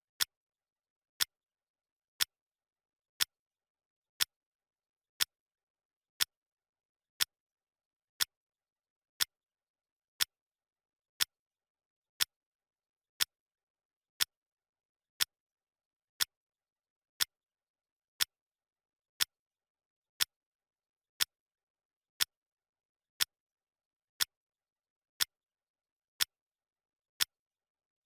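Clock ticking once a second, each tick a short sharp click with dead silence between, marking the seconds of a countdown timer.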